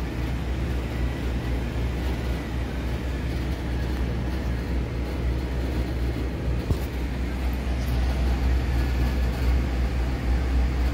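ClimateMaster heat pump running with a steady low hum, getting a little louder near the end. A single light knock about two-thirds of the way through.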